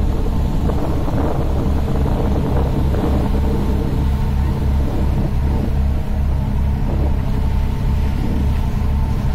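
Heavy wind buffeting the microphone: a loud, choppy low rumble, over a steady hum.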